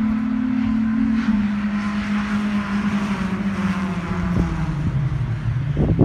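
Car engine running with a steady drone that steps down in pitch about a second in and then falls slowly, as the car pulls away down the road, over a hiss of road noise.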